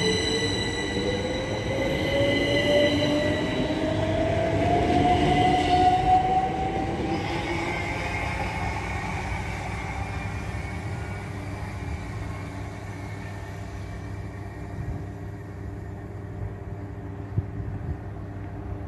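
A c2c Class 387 Electrostar electric multiple unit pulling away and accelerating. Its traction motor whine rises steadily in pitch over the first several seconds, then the train noise fades as it draws off into the distance. A steady electrical buzz from the adjacent railway substation is left behind.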